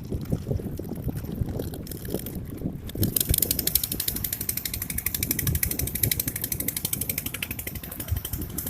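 Wind buffeting the microphone with a low rumble, joined about three seconds in by a fast, even clicking: a fishing reel being cranked to wind in the line.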